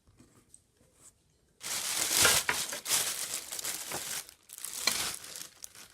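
Packaging crinkling and rustling as parts are pulled from a cardboard vacuum box, starting after about a second and a half of near quiet and going on in irregular handfuls.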